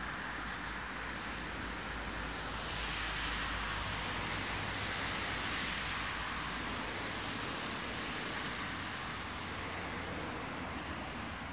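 Road traffic noise: a steady hiss of car tyres on the road, swelling for a few seconds in the middle as a car goes by.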